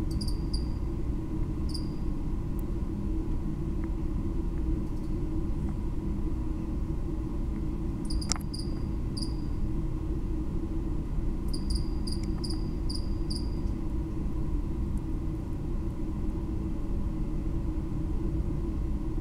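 A cricket chirping in short, high chirps that come in scattered groups with long pauses between, over a steady low rumble. A single sharp click about eight seconds in.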